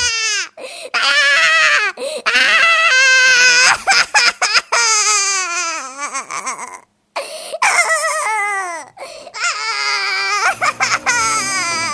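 High-pitched cartoon-style crying and sobbing from a character voice: a run of wavering wails that mostly fall in pitch, broken by short catches and one brief silence about seven seconds in.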